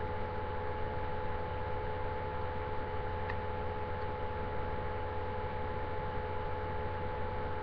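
Steady electrical hum with a few held tones over a constant hiss, the room tone picked up by a webcam microphone. There is a faint click about three seconds in.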